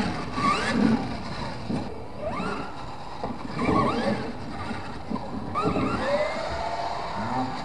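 RC monster truck's motor whining in short rising glides of pitch as the throttle is punched, several times over, with a longer rise that holds steady about six seconds in.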